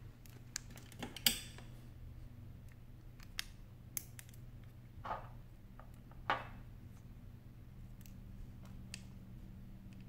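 Small clicks and taps of a precision screwdriver and fingertips on the screws and metal brackets inside an opened iPhone 8 Plus, the loudest click about a second in, with two short scrapes around five and six seconds in.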